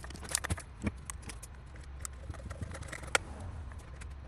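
Scattered light clicks and taps of a run capacitor and its wires being fitted back into the rear compartment of an electric pool pump motor, with a sharper click about three seconds in.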